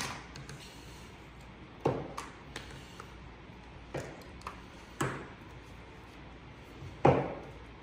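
Plastic plumbing fittings and a reinforced plastic hose being handled and hand-threaded together: a series of short clicks and knocks, the loudest about two, five and seven seconds in.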